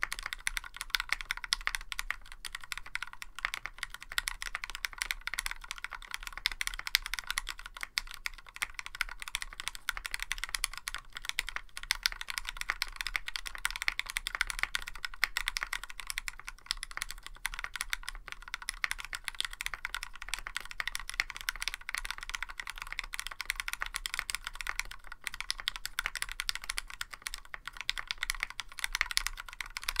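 Continuous fast typing on a Tofu65 mechanical keyboard fitted with lubed Gateron Ink Black linear switches in a tray-mounted polycarbonate plate, under PBT keycaps: a steady, dense run of keystroke clicks.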